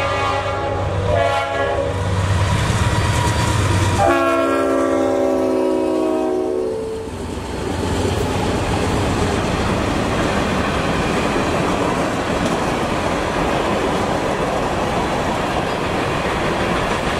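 Norfolk Southern diesel locomotive horn sounding short blasts, then a long blast about four seconds in that lasts nearly three seconds, over the low drone of the locomotives' diesel engines. Then the freight cars roll past with a steady rumble and clickety-clack of wheels over the rail joints.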